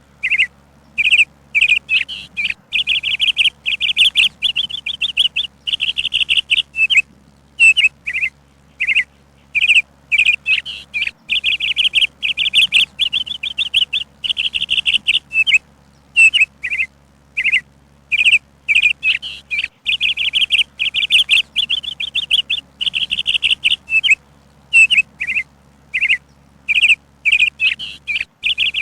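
Songbird chirping: short high chirps again and again, broken by fast trilled runs of a second or two.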